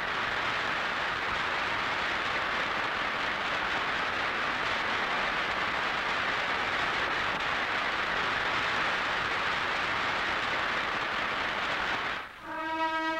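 A large theatre audience applauding, a steady, even clatter of many hands. Near the end it stops abruptly and brass music with trumpets begins.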